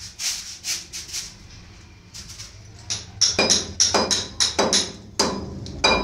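Hammer chipping concrete: a quick run of lighter knocks, then from about halfway through louder, sharper blows, roughly two a second, each with a short metallic ring.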